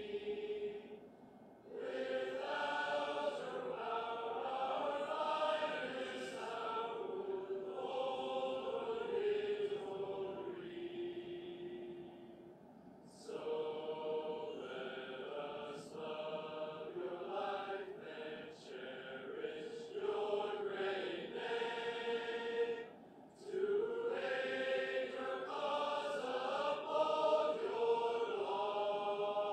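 A group of voices singing slow, held choral phrases, with short breaks between phrases.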